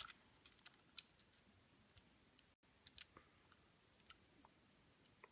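Faint, sharp clicks at irregular intervals as a small toy train engine is turned over and handled in the fingers.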